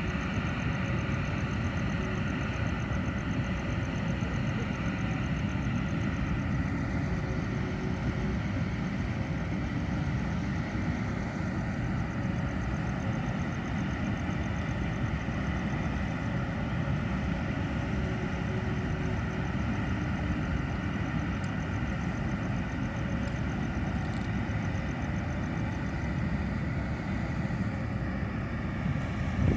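An engine running steadily: a continuous low rumble with a faint steady whine over it, unchanging throughout.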